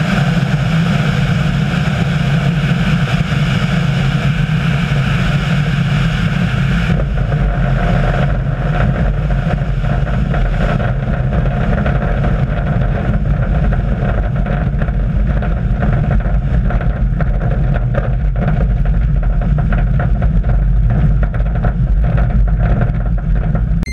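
An engine running at a steady speed, with low rumble from wind on the microphone. About seven seconds in, the high hiss drops away.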